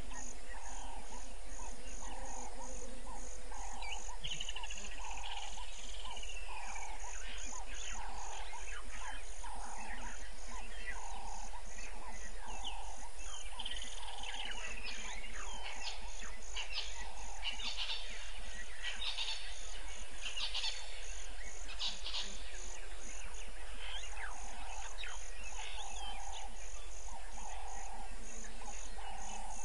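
Evening bush chorus: insects calling steadily, one high call pulsing about three to four times a second and a lower one about once or twice a second, with scattered short bird chirps and calls, over a steady low hum.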